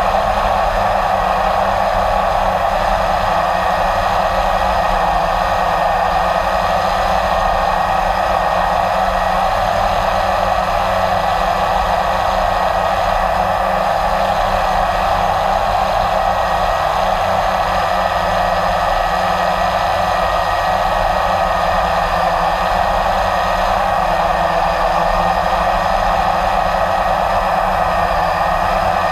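Blade 350 QX3 quadcopter's four electric motors and propellers whirring steadily in flight, loud and close from the camera it carries.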